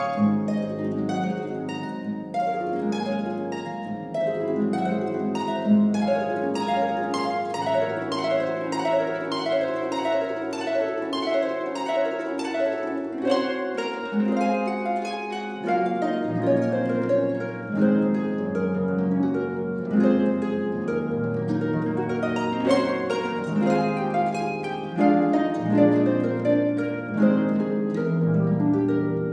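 Solo concert pedal harp playing a continuous flow of rapid plucked notes and chords over ringing bass notes.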